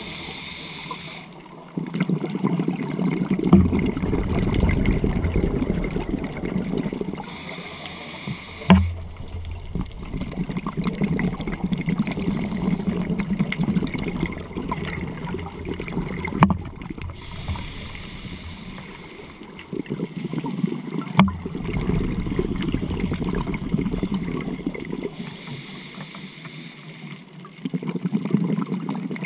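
Scuba diver breathing through a regulator: a hiss of inhaled air four times, roughly every eight seconds, each followed by a long low burble of exhaled bubbles. Three sharp clicks sound along the way.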